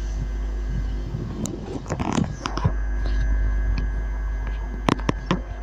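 Railway station ambience: a steady hum over a deep rumble, with a noisy stretch about two seconds in and a few sharp clicks and knocks, the loudest about five seconds in.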